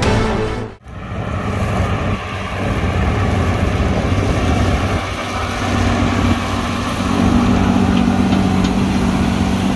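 Theme music ends abruptly within the first second. Then a large tractor's diesel engine runs steadily under load as it pulls a disc harrow through stubble.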